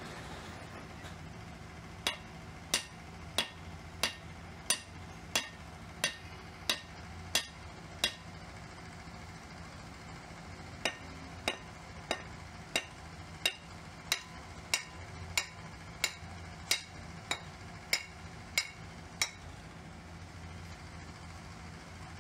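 Hammer knocking on a freshly sand-cast metal pump impeller to clean off the moulding sand: two runs of sharp, ringing metal knocks, about one and a half a second, roughly ten and then about fourteen, with a pause of a few seconds between. A steady low hum runs underneath.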